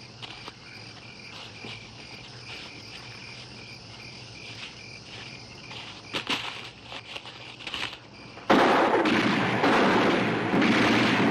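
Crickets chirping in the night woods; about eight and a half seconds in, a sudden, loud, sustained volley of rapid submachine-gun and pistol fire starts and drowns them out.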